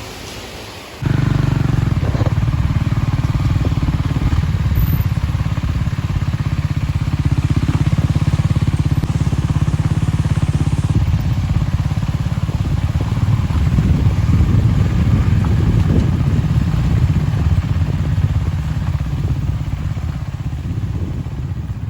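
Motorcycle engine running steadily while being ridden, starting abruptly about a second in, with a fast, even pulse low down.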